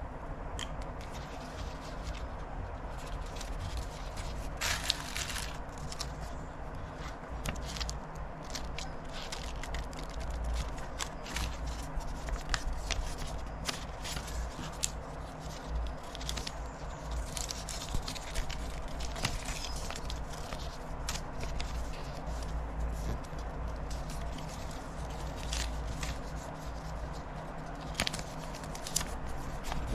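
Close handling noise: scattered small clicks, taps and scrapes over a low steady hum, with a brief louder scrape about five seconds in.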